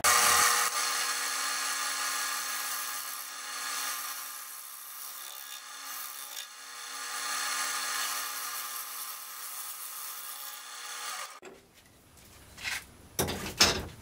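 A gouge cutting across the face of a spinning block of scrap 2x8 construction lumber on a wood lathe, flattening it: a continuous hissing cut over the steady hum of the lathe, stopping about eleven and a half seconds in. A few light knocks follow near the end.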